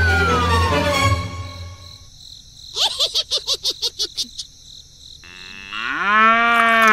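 A string of sound effects. First a long falling whistle-like glide. Then a quick run of about six chirps a second for over a second. Last, a drawn-out tone that rises and then holds.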